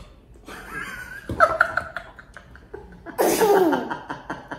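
A small boy sputters and coughs at a bite of lemon pepper chicken wing that is too spicy for him, with short vocal outbursts. Loud laughter comes about three seconds in.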